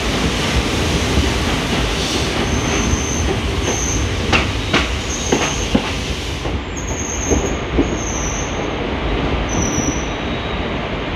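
ICF passenger coach rolling slowly alongside a platform as the train slows, with a steady rumble. About four to six seconds in, a quick run of wheel clicks sounds over rail joints, and short high-pitched wheel squeals repeat about once a second.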